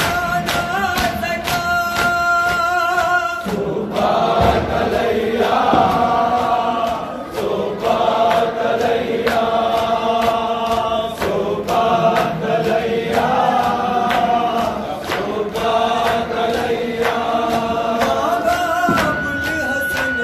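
A group of men chanting a noha, a Muharram lament, with steady rhythmic chest-beating (matam) slapping in time with the chant.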